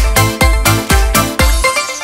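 Upbeat electronic backing music of a children's song, with no singing: a steady dance kick drum at about four beats a second under synth chords and melody. The drums drop out near the end, leaving the melody.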